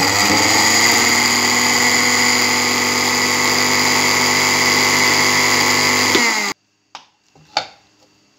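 Electric mixer-grinder motor running at full speed, grinding spices in a small glass grinder jar: a loud, steady whine that stops abruptly about six and a half seconds in. A few light clicks and a knock follow as the jar is handled.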